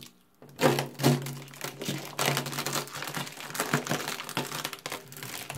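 Clear plastic protective film crinkling and crackling as it is handled, starting about half a second in after a brief quiet moment.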